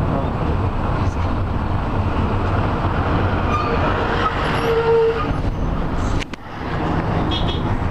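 Road and engine noise heard from inside a moving vehicle: a steady low rumble and tyre hiss, with a short horn toot about five seconds in.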